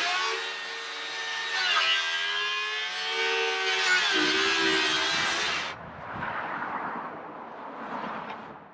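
Cordless power saw cutting through a wooden board, running with a steady motor hum whose pitch shifts a little under load. It stops abruptly about six seconds in, leaving quieter handling noises.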